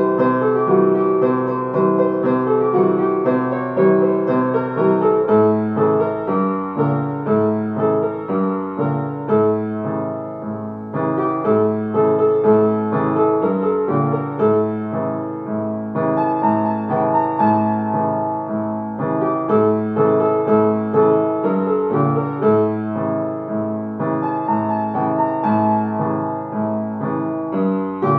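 Solo upright piano playing an instrumental arrangement of a Greek laïko song. A steady, rhythmic bass-and-chord left hand runs under the melody.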